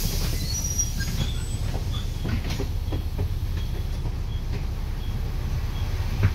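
Double-decker bus heard from inside the cabin: a steady low engine rumble with body rattles and clicks, and a faint high beep repeating about every 0.7 seconds. A sharp knock near the end.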